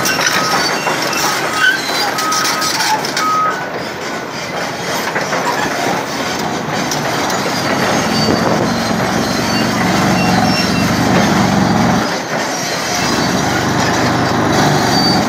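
Maxbrio BR55 eccentric-vibration ripper on a Caterpillar 352F excavator working its tooth into rock: a loud, dense, steady mechanical racket of the vibrating ripper and the excavator engine, with rock grinding and breaking under the tooth. A few short high-pitched tones sound in the first few seconds. A deeper hum strengthens about eight seconds in and cuts out for a moment about twelve seconds in.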